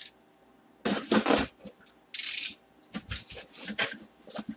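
Cardboard box being handled and opened by hand: short bursts of cardboard scraping and rustling, with a steadier hiss about two seconds in.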